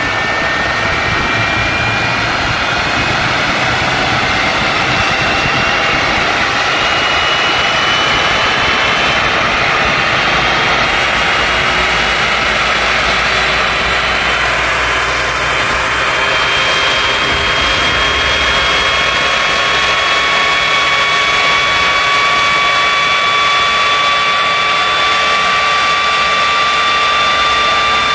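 Westinghouse J34 turbojet running steadily under way, a loud rushing roar with several whine tones that climb slowly in pitch as the engine speeds up.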